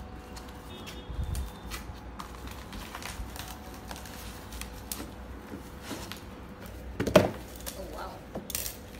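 Cardboard shipping box being cut and pulled open by hand: scattered clicks, scrapes and rustles of cardboard, with a louder knock or tear about seven seconds in, and bubble wrap rustling near the end. A faint steady hum sits underneath.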